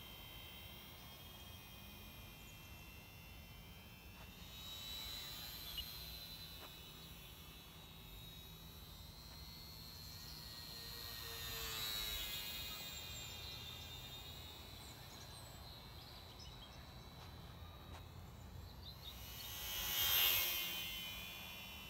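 The twin electric motors and propellers of a Microaces Percee micro RC model plane whining high and thin, swelling and bending in pitch as the plane flies past three times, the loudest pass near the end.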